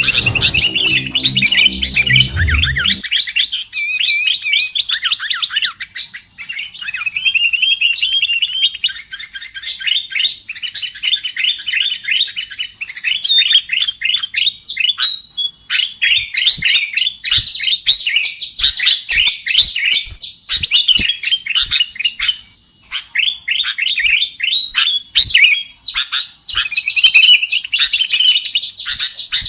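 Sooty-headed bulbul (kutilang) calls in a bird-trapping lure recording: rapid, overlapping chirps and short whistled notes. A low rumble sits under the first three seconds.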